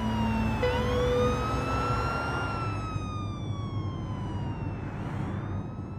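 Police car siren wailing, its pitch sweeping slowly up and down in long rising and falling glides, over a low steady rumble.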